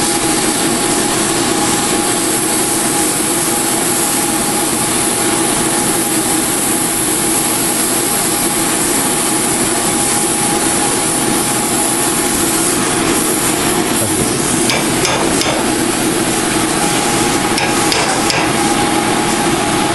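Oxy-fuel cutting torch flame held on a steel rod, a steady loud rushing hiss as it heats and cuts the metal, with a few sharp crackles and pops in the last few seconds. A steady hum runs underneath.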